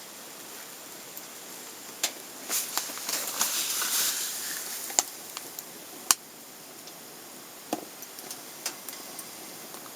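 Wood fire burning in a small box-type wood stove: a steady hiss with irregular crackles and sharp pops, busiest around the middle.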